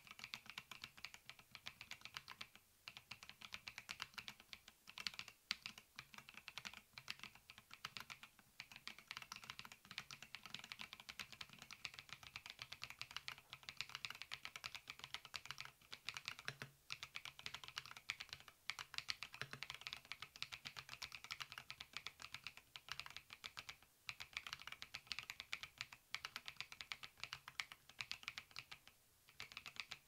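Steady fast typing on a mechanical keyboard with Keychron Banana tactile switches: a dense stream of key clacks, broken by a few short pauses.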